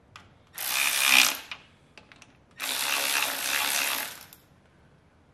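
Ratchet wrench running front cover bolts down on a Case David Brown 1394 engine, in two runs of rapid clicking, the first about a second long and the second about a second and a half.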